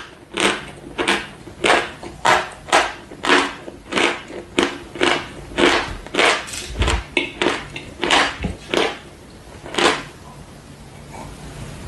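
Close-up chewing of dry chalk: a steady run of loud, crisp crunches, about two a second, that stops about ten seconds in.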